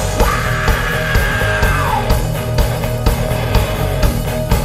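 Live rock band playing a heavy-metal arrangement, with distorted guitars and a steady drum beat. A long held high note rides over the band and bends down about two seconds in.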